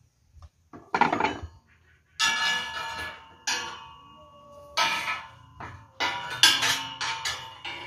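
Steel rebar rods and stirrups clanking against each other as they are handled, each knock ringing briefly like struck metal; the clanks come faster near the end.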